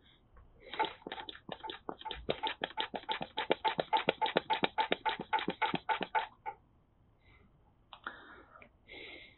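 Hand-squeezed brake vacuum bleeder pump worked rapidly, pulling vacuum on a rear brake caliper bleeder. It makes a fast run of clicking strokes, about five a second, for some five seconds, then two short hisses near the end.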